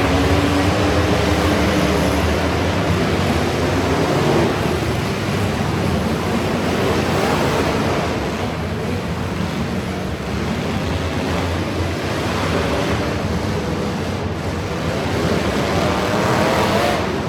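Truck engine revving hard, its pitch rising and falling near the start and again near the end, over a loud steady rushing noise.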